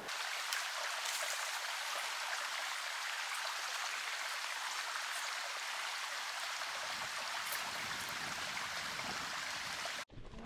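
A small creek running low, with a steady rush of water. It cuts off sharply near the end.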